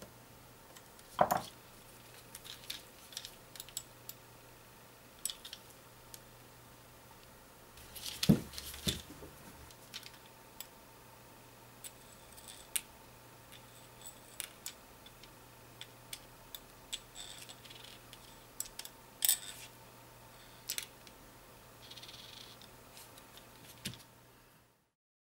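Handling of a РМГ-1 head demagnetizer's plastic housing and a screwdriver on a table: scattered small clicks, taps and knocks, with louder knocks a little over a second in, around eight seconds in and about nineteen seconds in.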